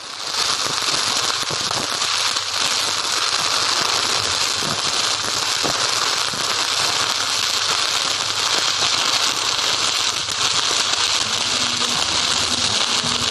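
Shielded metal arc (stick) welding: the electrode's arc burning steadily with a dense, even hiss that fades in at the start.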